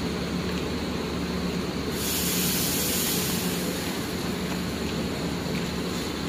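Bus idling with a steady hum, and a burst of pneumatic air hiss about two seconds in that lasts about a second and a half.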